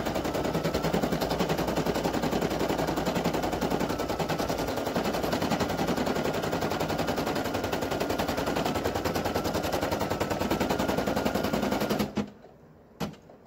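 Brother PE800 embroidery machine stitching an applique placement line at speed: a rapid, even needle rattle that stops abruptly about twelve seconds in, followed by a couple of clicks.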